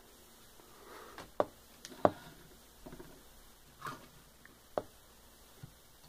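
Plastic Transformers action figures being picked up and set down on a wooden tabletop: a few sharp clicks and taps, the loudest about a second and a half in, at two seconds and near five seconds.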